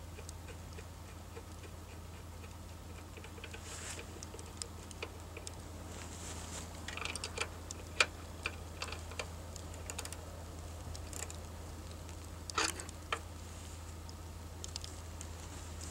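Scattered small clicks and metallic taps of pliers working on a snowblower engine's fuel line and tank fitting. The sharpest click comes about eight seconds in, and a short cluster follows near the end, over a faint steady low hum.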